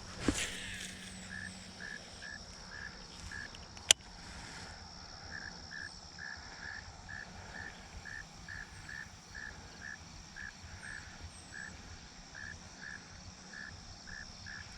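Insects calling: a steady high drone with a short chirp repeating about twice a second. A single sharp click about four seconds in is the loudest sound.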